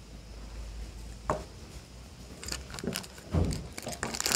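Plastic toy capsule and the small plastic bag of toy parts handled in the hands: one sharp plastic click about a second in, then a few light knocks and rustles near the end.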